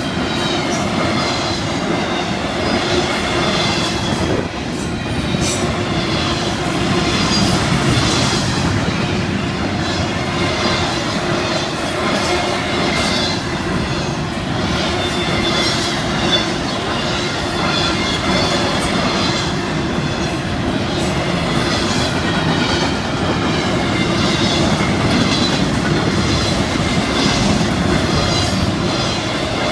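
Intermodal freight cars, double-stack container cars and trailers on flatcars, rolling past at steady speed. Their wheels keep up a continuous rumble and clatter over the rails, with thin wavering high-pitched squeal tones over it.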